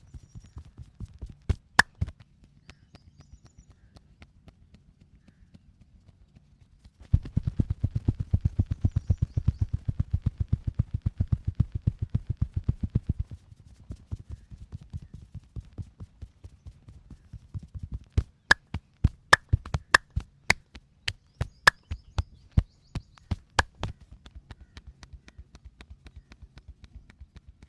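Hands drumming fast and evenly on the body in a percussive massage, chopping or cupped-hand strikes, for about six seconds. Later comes a run of sharp, separate slaps or cracks, some in quick pairs, with a few single sharp hits near the start.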